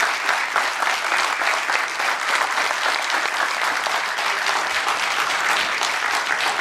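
A large crowd applauding steadily, dense and sustained, greeting the announcement of the vote result.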